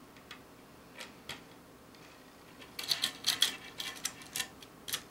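Small metal hardware being handled: wing nuts, washers and 1/8 inch stainless steel rod elements clicking against each other and the plexiglass boom. A few scattered light clicks, then a denser clatter of quick clicks and rattles over the last two seconds.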